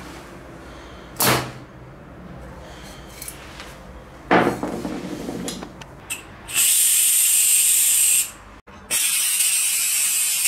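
Compressed air released through the nozzle of a refilled aerosol can: two long, steady, high hisses, the first lasting about a second and a half and the second starting about nine seconds in. Two brief sharp noises come earlier, about one and four and a half seconds in.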